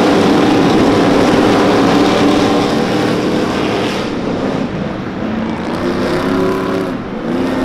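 Stadium Super Trucks' V8 race engines running hard as the trucks pass, loud at first and fading about three seconds in, then engine notes climbing again in pitch as more trucks come through near the end.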